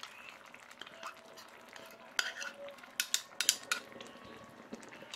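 A spatula scraping yogurt mixture out of a bowl into a kadai of simmering curry, with a quick run of sharp taps and clicks against the bowl and pan about two to four seconds in, over a faint sizzle from the pan.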